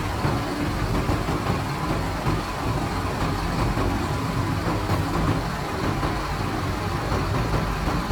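Bus engine running steadily at low speed, a constant low hum.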